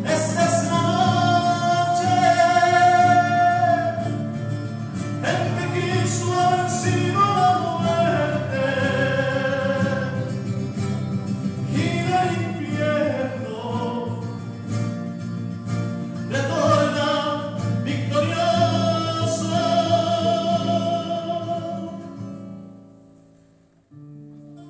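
A hymn sung with guitar accompaniment, the melody drawn out in long held notes. The singing fades out near the end, and plain guitar strumming begins.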